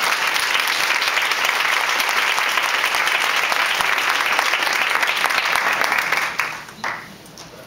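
A roomful of people applauding, dense steady clapping that dies away about six seconds in.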